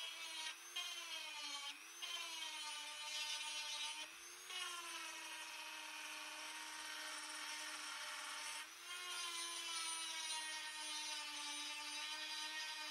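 Dremel rotary tool running with a steady high whine, its bit grinding the steel edge of a cleaver blade with a gritty rasp. The pitch sags briefly and recovers about four times as the bit is pressed into the steel.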